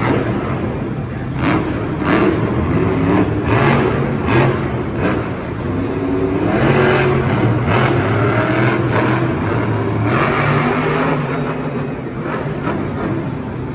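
An engine revving up and down repeatedly, with sharp knocks in between.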